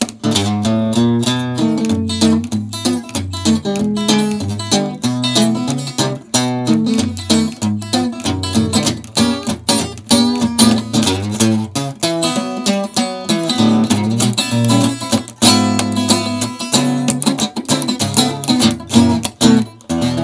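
Solo acoustic guitar played fast, with quick rhythmic strummed chords over a moving line of bass notes.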